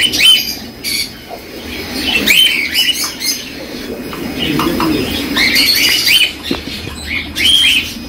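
Caged pet-shop birds chirping and squawking: many short, arched calls overlapping one another.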